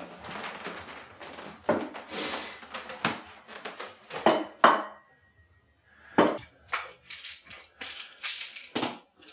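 Household clatter of a bowl and spoon clinking and being set down, with two sharp knocks a little past four seconds in. After a brief pause come lighter clicks and taps of plastic supplement bottles being handled on a counter.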